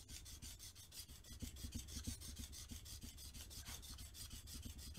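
Steel plane blade being rubbed back and forth by hand on a wet diamond sharpening plate, a fast even run of scraping strokes. The back of the blade is being lapped flat, with only its first quarter to half inch on the plate.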